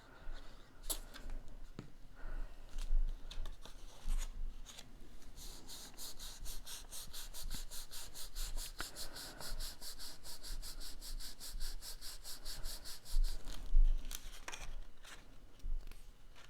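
Cardstock being handled and pressed down by hand: rustling and light knocks, with a long run of quick, even rubbing strokes in the middle and a louder knock near the end.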